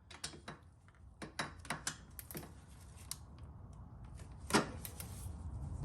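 Hand socket ratchet clicking in short, irregular runs as a final-drive mounting bolt is worked loose, with one louder metallic knock about four and a half seconds in.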